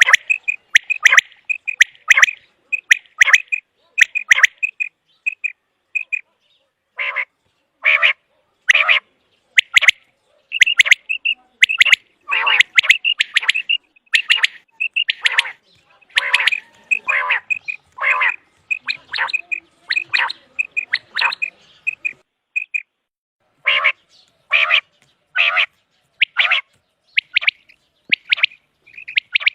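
Common quail calling: short, sharp notes repeated in quick runs, with brief pauses about a fifth of the way in and again about three quarters of the way through.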